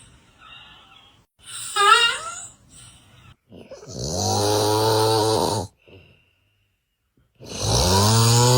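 Two long, loud snores, each a steady low rattling drone with a breathy hiss, separated by a couple of seconds of silence. About two seconds in, before the snores, there is a short, high, wavering whine.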